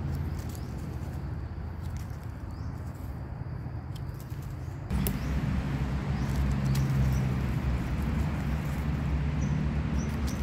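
A knife scraping soil off the stem bases of freshly picked mushrooms: faint small scrapes and clicks over a steady low rumble that gets louder about halfway through, with a few faint bird chirps.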